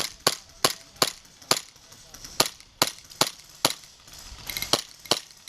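Airsoft gun firing a rapid string of single shots, about eleven sharp cracks at two to three a second, in three short runs with brief pauses between them.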